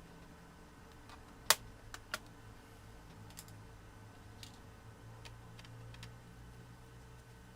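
Small screws and a screwdriver clicking and tapping against a netbook's plastic case as the battery-compartment screws are taken out: one sharp click about a second and a half in, two more just after, then scattered lighter clicks.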